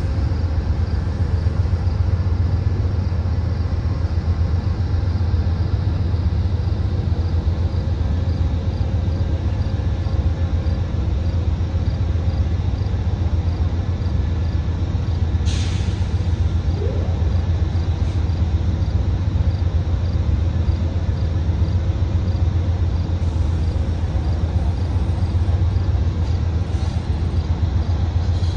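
Diesel engines of Amtrak ALC42 Charger locomotives, Cummins QSK95 V16 units, running with a steady low hum as the train creeps forward at low power. A short hiss of air is heard about halfway through.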